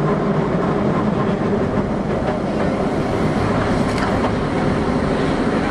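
Osaka Metro 21 series subway train running at steady speed: an even rumble of wheels on rail with a few faint clicks.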